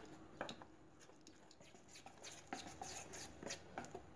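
Metal spoon stirring a thick flour-and-spice batter in a stainless steel bowl, making faint, irregular clicks and scrapes against the steel.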